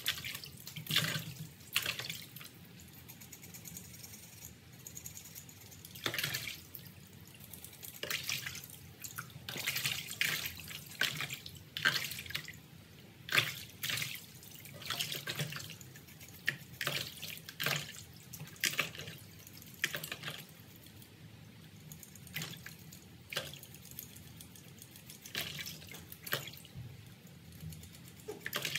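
Water splashing and sloshing in a plastic basin as raw pig offal is scrubbed and rinsed by hand, in irregular bursts.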